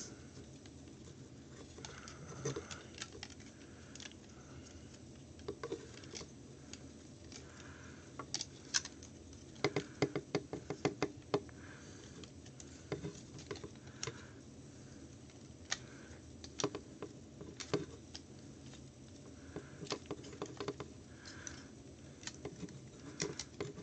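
Plastic parts of a Transformers Leader Class Megatron action figure clicking, tapping and rattling as they are unpegged and turned by hand during its transformation. The clicks are scattered and irregular, with a busier run about ten to eleven seconds in.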